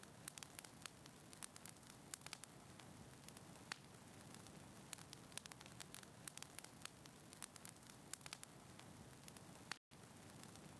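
Faint crackling fireplace: a low steady hiss of burning wood with frequent irregular small pops and snaps. The sound cuts out completely for an instant near the end.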